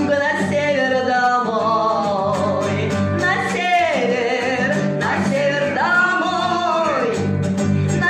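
A woman singing a wordless vocal line in long held notes with vibrato and wide swooping slides in pitch, over a strummed acoustic guitar.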